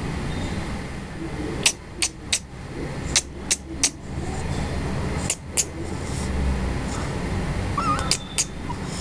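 Sharp mouth clicks in quick runs of three, three, two and two, made to coax a baby to smile, over a steady low hum. A brief squeak comes just before the last pair.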